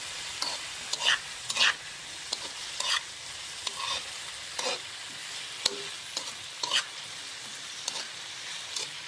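Metal spatula scraping and knocking against a wok while sliced bottle gourd and eggplant are stir-fried, over a steady sizzle. The scrapes come irregularly, roughly one every half second to a second.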